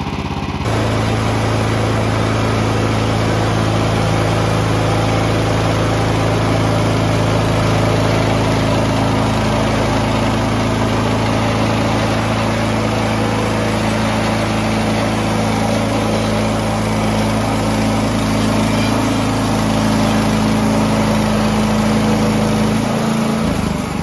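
Woodland Mills HM130MAX portable bandsaw mill running steadily, its single-cylinder petrol engine under load as the blade cuts along a squared log. The engine note changes shortly before the end.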